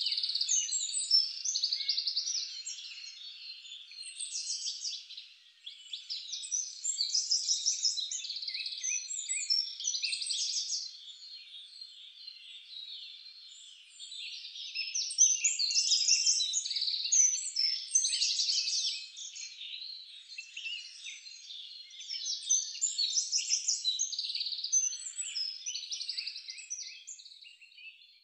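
Several songbirds chirping and trilling together, with high, quick calls overlapping, swelling for a few seconds at a time and then easing off.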